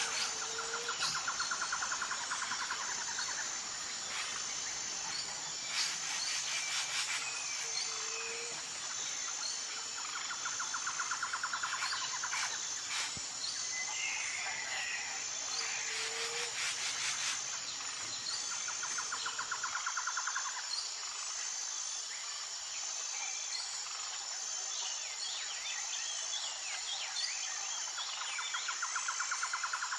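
Insect chorus and bird calls: a steady high-pitched pulsing drone with a two-second trill repeating every five seconds or so, and occasional short bird chirps.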